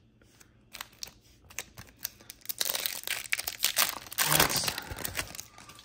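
Upper Deck MVP hockey card foil pack being torn open and its wrapper crinkled by hand. Scattered crackles at first, then dense crinkling about halfway through, loudest near the end.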